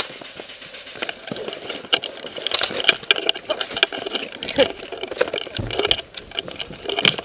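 Metal sling swivel of an airsoft AK-74M rattling about an inch from the gun-camera microphone, a quick irregular clatter of clicks as the rifle is jostled while its carrier moves over snow.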